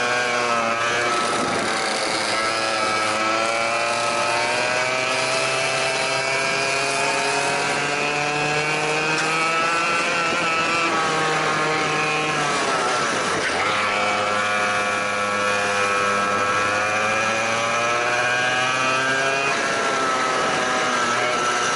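Go-kart engine running hard, its pitch climbing steadily as the kart speeds up and falling away sharply as it slows, about twelve seconds in and again near the end.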